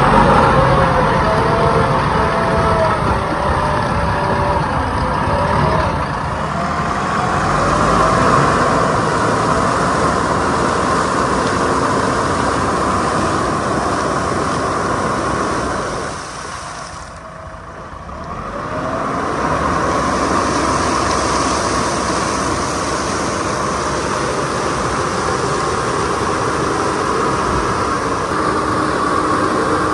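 JCB 3DX backhoe loader's diesel engine running under load as its big tyres churn through shallow water, throwing up heavy splashing spray. The sound drops away briefly just past halfway, then returns.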